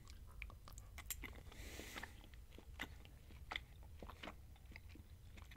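A person chewing a mouthful of beef burrito bowl with lettuce and guacamole, close to the microphone: irregular small wet clicks from the mouth, with a brief rustly stretch a little under two seconds in.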